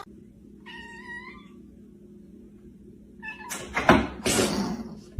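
A cat meowing once, about a second in. Near the end comes a louder, harsher noisy sound lasting about a second and a half.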